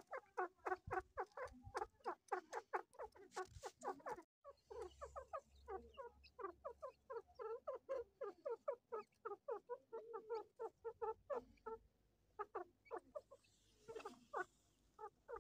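A brood of newly hatched partridge chicks cheeping: a dense stream of short, falling peeps at about six a second, broken briefly about four seconds in.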